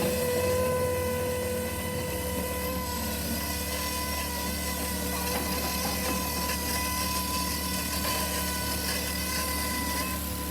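Mammut SK650 electric skid steer working while digging into hard clay: a steady whine from its electric drive and hydraulics over a low hum.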